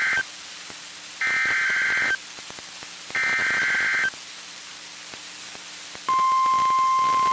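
NOAA Weather Radio emergency alert: the end of one SAME header data burst, then two more full bursts of buzzy digital data, each about a second long, with static hiss between them. About six seconds in, the steady 1050 Hz warning alarm tone starts and holds, the signal that a warning broadcast follows.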